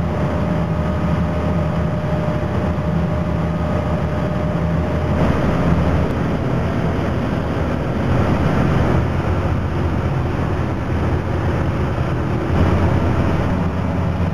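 A tug's diesel engines running in a steady low drone under load while towing on a line, heard from on board, with a wash of water behind it. The drone swells about five seconds in and again near the end.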